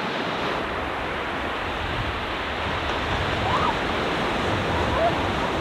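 Ocean surf breaking on a sandy beach: a steady rush of waves, with a few faint short high calls in the second half.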